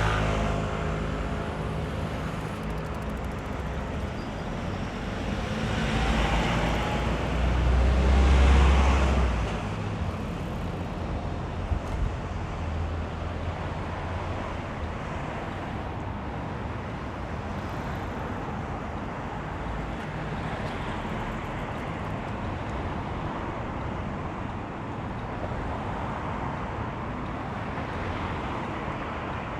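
Road traffic: cars pass about six and eight seconds in over a steady wash of traffic noise, with low rumbling gusts of wind on the microphone. A short sharp click comes near the middle.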